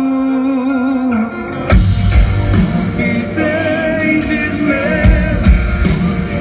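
Worship song played live by a band with a singer: a held keyboard chord under the voice, then about two seconds in the drums and bass come in and the song picks up.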